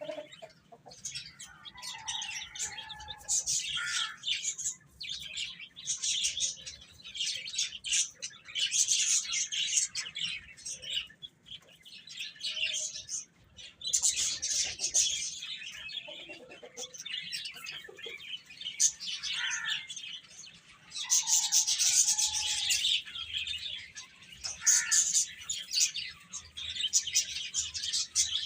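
Baby chicks peeping, with short falling cheeps, over repeated bursts of rustling and pecking as they feed.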